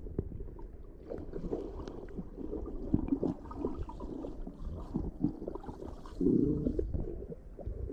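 Water heard through an underwater camera as a golden retriever dives to the bottom: a muffled low rumble with bubbling and many small clicks. About six seconds in there is a louder stretch of bubbling.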